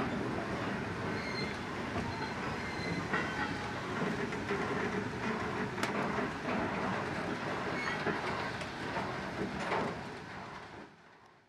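Loose-coupled goods wagons rolling slowly past on jointed track: steady rumble and clatter of the wheels, with a few brief squeals and a sharp clank about halfway. The sound fades out near the end.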